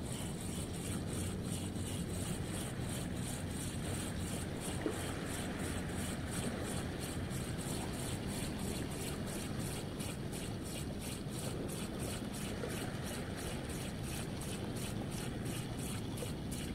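Cetus Attach 1000 ultralight spinning reel being cranked steadily through a lure retrieve: an even ticking about three times a second over a steady low rushing noise.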